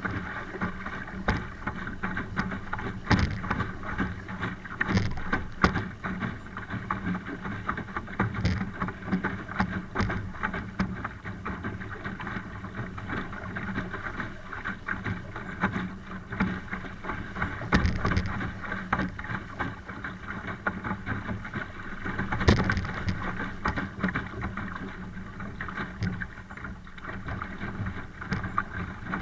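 A Laser dinghy under sail in strong wind: water rushing and splashing against the hull, with frequent short knocks. The loudest knock comes about three-quarters of the way through.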